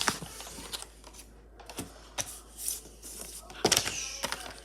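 Small ball magnets clicking sharply as they snap together, a few irregular clicks with a quick cluster of them near the end.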